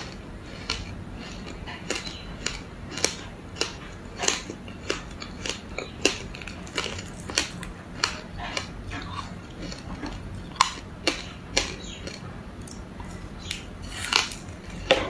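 A person biting and chewing frozen passion-fruit ice coated in matcha powder: a steady run of sharp, crisp crunches, about one or two a second, with a few louder ones near the end.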